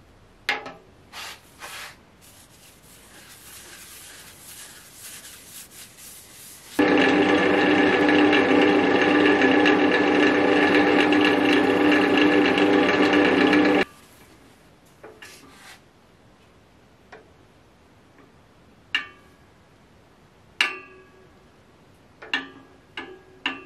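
Wood lathe running steadily for about seven seconds while a cloth is held against the spinning resin-and-oak-root blank to polish it, then stopping abruptly. Before it comes brief rubbing of a paper towel wiping the blank, and after it a few sharp knocks with short ringing.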